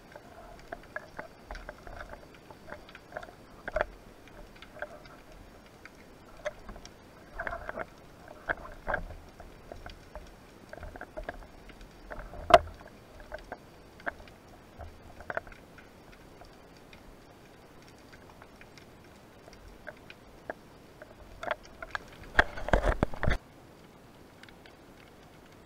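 Underwater clicks and knocks from a speargun-mounted camera's housing and the gun being handled during a spearfishing dive: scattered single clicks, one sharper than the rest about halfway through, and a dense run of clicking near the end that cuts off suddenly.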